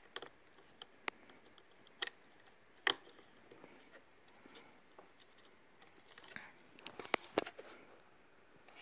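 Faint, scattered clicks and taps of fingers handling thin wires and a plastic JST connector as it is pushed into the VESC 6 controller's COMM port. Single clicks come about once a second early on, then a short cluster ends in two sharper clicks.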